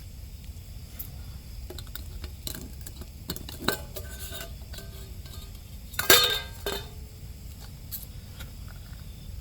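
Camp cookpot and its metal lid being handled: light clinks and scrapes, then one loud ringing clank about six seconds in, with a few smaller clinks after it.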